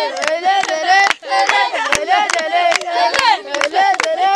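High voices singing a repetitive chant together, with steady rhythmic hand-clapping keeping the beat for a child to dance to.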